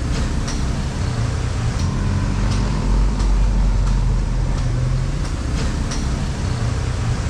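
Steady low rumble of street traffic, with a few light clicks scattered through it.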